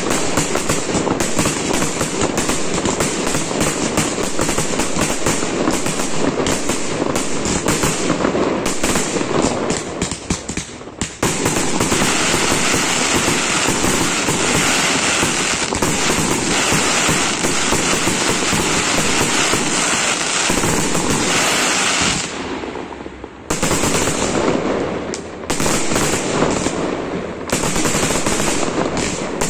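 Aerial fireworks display: a dense, rapid barrage of shell bursts and crackling, with a brief lull about ten seconds in and another about twenty-two seconds in.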